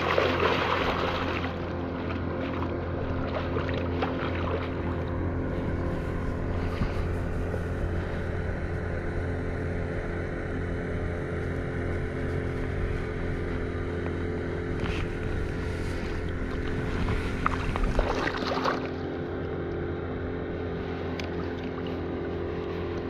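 A hooked pink salmon splashing at the surface beside the landing net for the first second and a half, with more splashing about eighteen seconds in. A steady low motor hum runs underneath.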